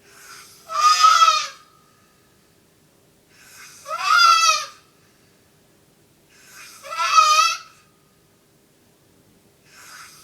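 A sleeping man snoring, each breath a short breathy rush that turns into a loud, high-pitched, wavering squeal. The snores come about every three seconds: three full ones, and a fourth beginning at the end.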